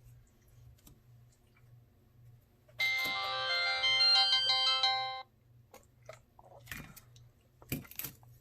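Samsung SGH-T309 flip phone playing its power tone, a chiming melody of several stepped notes lasting about two and a half seconds, starting about three seconds in. A few clicks follow near the end.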